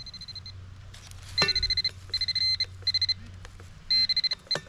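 A Garrett handheld pinpointer giving its high, rapidly pulsing electronic alert in several short bursts of varying length, with two sharp clicks between them.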